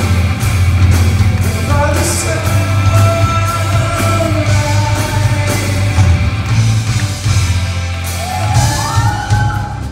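A live rock band heard from the audience, with a singer over electric guitar, bass and drums. A rising guitar glide comes in near the end.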